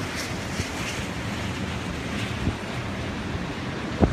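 Heavy storm surf breaking and washing up a beach: a steady rushing roar of waves, with wind blowing on the microphone. A sharp low buffet of wind hits the microphone just before the end.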